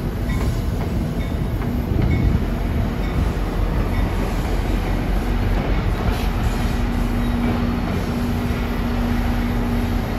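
New Jersey Transit commuter train of multilevel coaches rolling past with a steady rumble and clatter of wheels on rail. About seven seconds in, a steady hum joins it as the train's diesel locomotive at the rear comes by.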